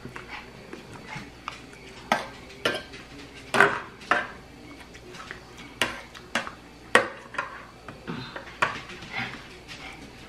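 A fork clinking and scraping against a plate while scooping up rice, in irregular sharp taps and short scrapes.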